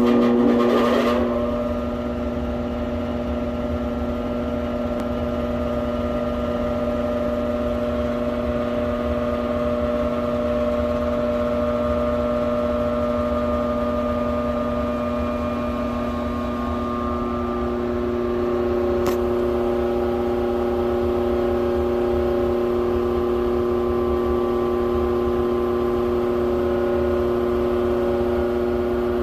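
Air-conditioning blower fan running with a steady hum of several tones over a low rumble: the noise the blower makes when the AC is on. A single click comes about two-thirds of the way through, and one tone grows stronger after it.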